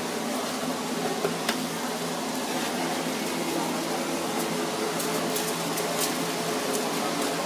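Steady mechanical hum of kitchen background noise, with a few light clicks and taps as a flying fish is handled on a steel tray and a foil-lined tray, a pair about a second in and several more near the end.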